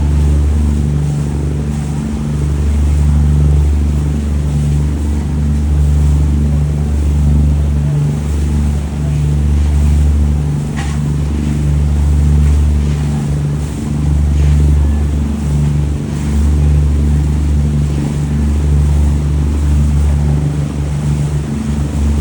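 A boat's engine running steadily with a low drone, from aboard the boat.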